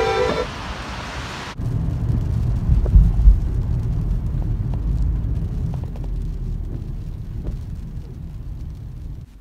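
Low rumble of a car driving, heard from inside the cabin, with a couple of thumps about three seconds in.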